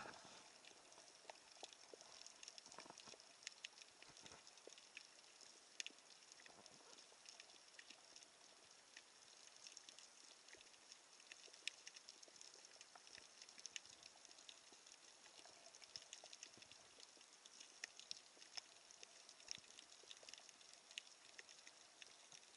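Faint underwater crackling: many irregular tiny clicks and snaps over a soft hiss, the ambient sound of the sea picked up by an action camera in its housing.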